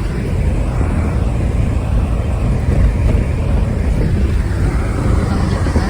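Steady road rumble and engine noise heard from inside a moving car's cabin.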